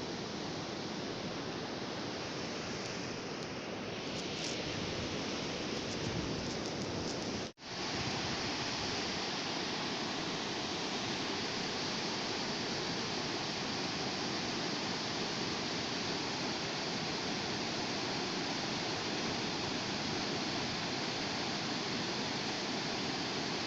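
Sea surf breaking and washing on the shore, a steady rush of water noise, cut by a brief dropout about seven and a half seconds in.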